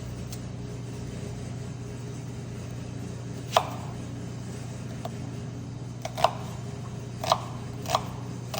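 Four short, sharp knocks of kitchen utensils or cookware on a hard surface, spaced over a few seconds, over a steady low hum.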